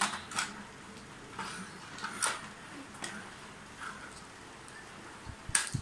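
Plastic toy train cars handled on a wooden tabletop: scattered light clicks and knocks, roughly one a second, with a sharper click near the end.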